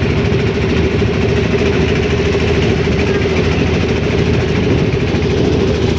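Engine of a motorised wooden river boat running steadily under way, loud and even, with a strong constant hum.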